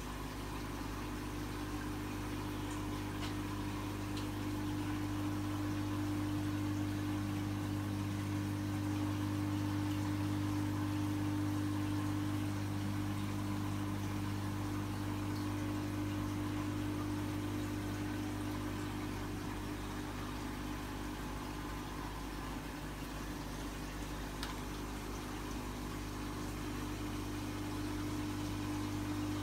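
Steady low hum of reef aquarium pumps and equipment, with a faint hiss over it.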